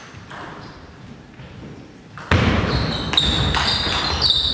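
Table tennis ball clicking off the table and rackets: a few light ticks at first, then a fast rally starting a little over two seconds in, much louder and denser. Quick footwork runs through the rally, with shoes squeaking sharply and thudding on the sports-hall floor.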